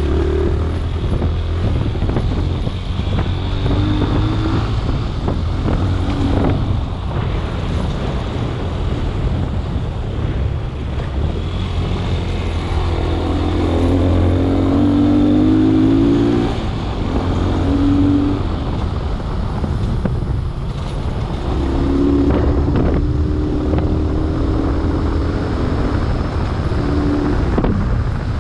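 A vehicle's engine running with a steady low rumble, revving up in several stretches, with occasional knocks as it drives a rough dirt track.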